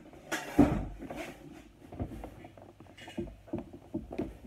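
Handling noise: a phone being moved about while clothes are handled, with irregular rustles and knocks and a loud bump about half a second in.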